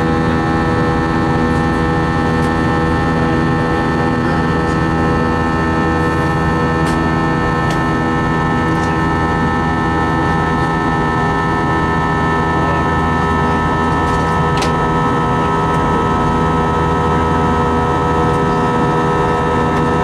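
IAE V2500 turbofan on an Airbus A320, heard from inside the cabin at climb power: a steady roar with the buzzsaw drone of many held tones from the fan.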